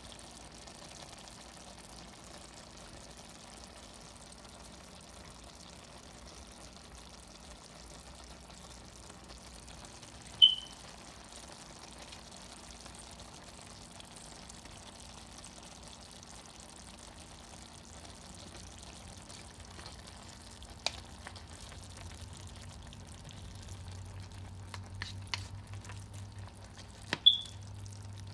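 Turnip greens and diced turnips simmering in liquid in a pan, a soft steady bubbling sizzle. In the last few seconds a spatula stirs them with light clicks and taps against the pan. Two short high pings, one midway and one near the end, are the loudest sounds.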